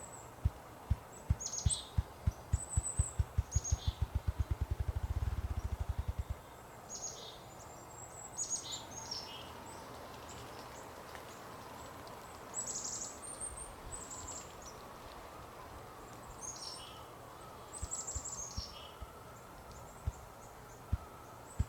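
Ruffed grouse drumming: low wing-beat thumps that start slow and speed up into a fast roll, stopping about six seconds in, with a new slow series beginning near the end. Songbirds chirp with short, high, falling notes throughout.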